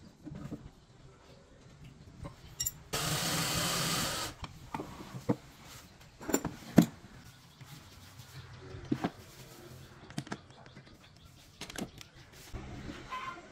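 Workshop handling sounds: scattered metal and wood clicks and knocks of wrenches and workpieces on a router table, with one loud, steady rushing burst a little over a second long about three seconds in.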